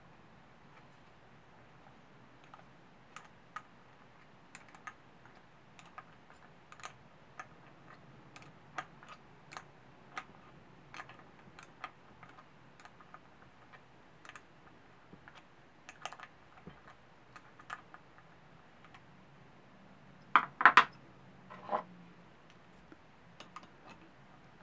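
Combination wrench clicking against an intake manifold bolt as it is turned in short strokes, a scatter of small metal clicks. A few louder metal clinks about 20 seconds in.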